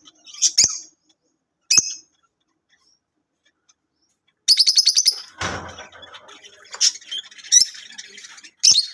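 Lovebirds giving sharp, high-pitched chirps: two single calls in the first two seconds, then from about halfway a rapid run of calls and a brief rustle, followed by steady chattering with loud shrieks near the end.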